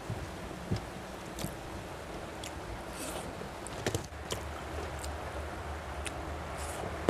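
Fingers mixing rice and curry on a steel plate and eating by hand: scattered small clicks and mouth sounds over a steady background hiss.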